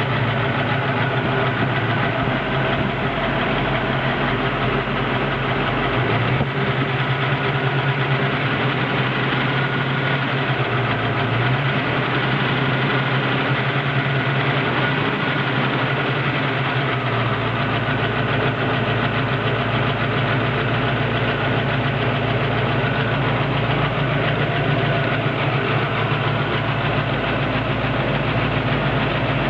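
A warm 331 cubic-inch stroker V8 idling steadily, with lifter ticking from the valvetrain over the engine note; the owner wonders whether the valvetrain noise is excessive.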